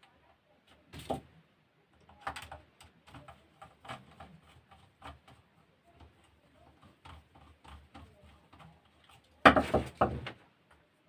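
Irregular light clicks and taps of small pump and motor parts being handled and fitted by hand, with a louder clatter of knocks near the end.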